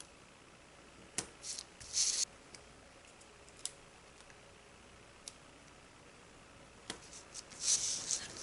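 Adhesive tape discs being peeled off their backing and pressed onto a thin plastic parachute sheet: two short bursts of crisp crinkling and clicking, about a second in and again near the end, with a few faint ticks between.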